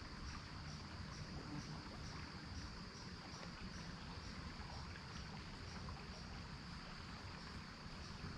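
Faint, steady flow of a small stream's riffle, with a high, even chirping that repeats about three times a second.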